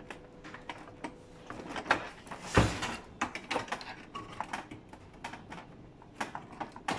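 Plastic side cover of a Fuji Xerox DocuPrint CM225 printer being pried off its snap clips by hand: irregular plastic clicks and rattles, with one louder knock about two and a half seconds in.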